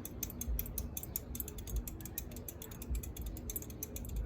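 Litex Windsong ceiling fan running with a rapid, steady clicking, about ten clicks a second, over dull low thuds. The fan has just been switched to reverse on a faulty reverse switch.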